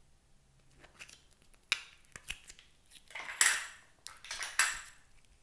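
Hard plastic M&M-shaped slime container cracked open with a few sharp clicks, the loudest about two seconds in, then blue slime pulled out of the shell with two longer sticky, crackling noises.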